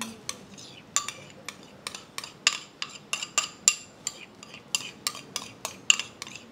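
Metal spoon scraping melted margarine out of a small ceramic bowl, clinking against its rim and sides: an irregular run of light, ringing clinks, a few a second.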